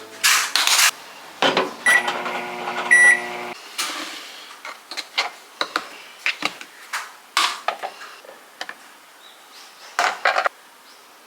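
Microwave oven being worked: two short beeps and a brief hum of it running, which cuts off suddenly, among clicks and knocks of a door and dishes being handled.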